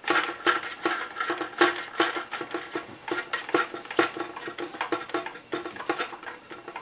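Hard plastic parts clicking and knocking as the grille is worked into the hollow cab of a Tamiya 1/14 Grand Hauler model truck. It is a quick, irregular run of taps, several a second, many with a brief ring from the shell.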